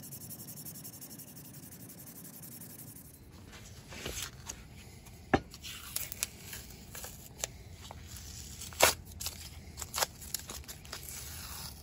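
Sandpaper rubbing back and forth on the wooden hatchet handle. About three seconds in, blue painter's tape is peeled and torn off the steel hatchet head, a series of sharp rips and crackles, the loudest near the middle.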